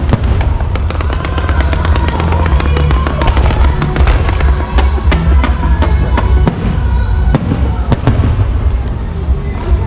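Fireworks going off in a rapid, continuous string of bangs and crackles, over loud music.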